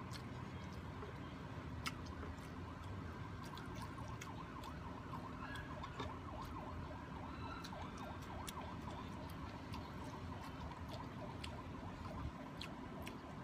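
Close-up eating sounds: small clicks and smacks of chewing and of fingers gathering rice on a wooden board, over a steady background hum. A faint wavering tone sits in the background through the middle.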